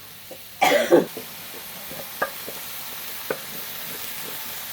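Nam prik ong mixture being stir-fried in a pan: steady sizzling with a few sharp clicks. A loud short burst comes just under a second in, after which the sizzle grows slightly louder.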